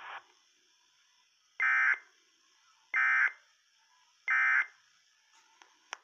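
Emergency Alert System end-of-message code: three identical short bursts of buzzy data tones, about a second apart, marking the end of the alert. Heard through a radio's small speaker, with a faint click near the end.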